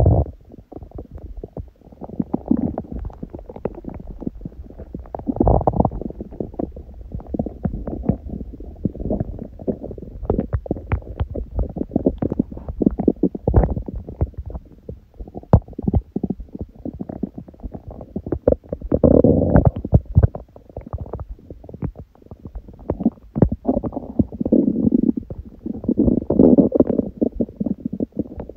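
A hungry person's empty stomach growling: low rumbles with a constant patter of small pops and bubbling clicks, swelling into louder gurgling rumbles a few times, the longest near the end.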